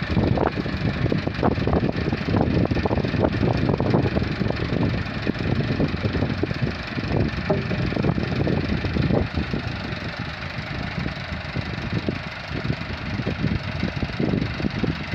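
Massey Ferguson 385 tractor's four-cylinder diesel engine running at low revs, a little quieter from about ten seconds in.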